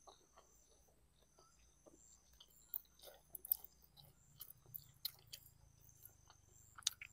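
Quiet close-up chewing of a mouthful of khanom jeen noodle salad with pork-stuffed squid: wet mouth smacks and clicks, with a few sharper snaps here and there.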